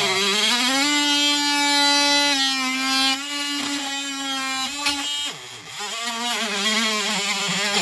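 Oscillating multi-tool cutting the plastic of a car dash's radio opening: a steady motor whine whose pitch shifts up and down, dipping briefly a little past halfway.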